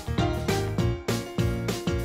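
Background music: a steady rhythm of struck notes, each dying away before the next.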